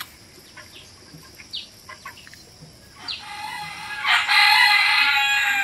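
A rooster crowing: one long call that starts about three seconds in and grows louder about a second later.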